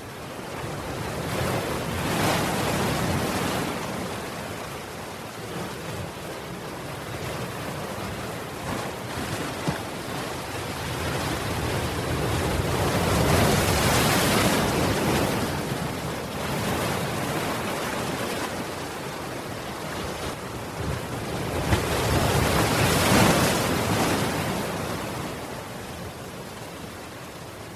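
Ocean surf: waves breaking and washing over a seawall promenade, the rush of water swelling three times, about every ten seconds.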